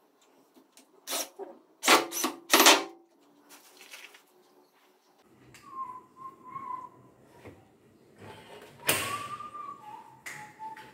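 Cordless drill driving screws into a door hinge in four short bursts, then someone whistling a short wavering tune.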